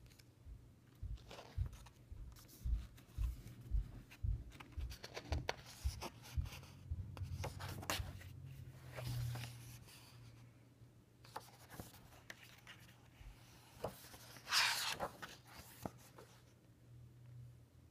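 Paper pages of a large book being handled and turned by hand: rubbing and rustling as the palm slides over the paper, with many soft knocks of handling and one louder page-turn swish about three-quarters of the way through.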